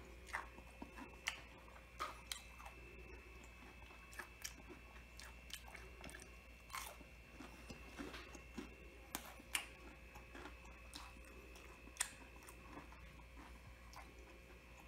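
A person chewing breaded calamari rings, with faint, irregular crunches of the crisp breading.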